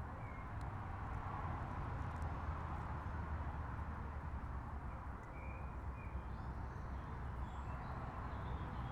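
Outdoor background: a steady low rumble with a haze of noise over it, and a few short bird chirps, one near the start and several more in the second half.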